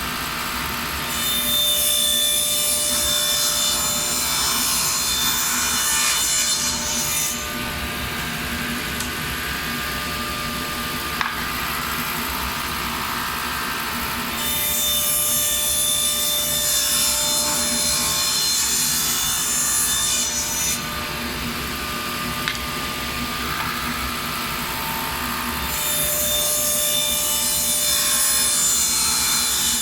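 Grizzly table saw running steadily while ripping half-inch plywood into strips: three passes, each several seconds of louder hissing cutting noise over the steady hum of the motor and blade, the first about a second in, the second midway and the third near the end.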